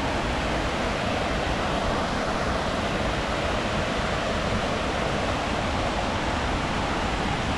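Steady rushing water of a waterfall, an even unbroken noise with no changes.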